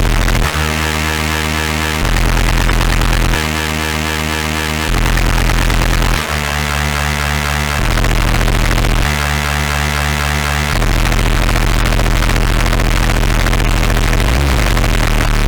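Synth string chords played through a Snowstorm white-noise distortion pedal, heavily distorted and buried in harsh noise, with a heavy blown-out bass. The chords change about every second and a half, then one chord is held through the last few seconds.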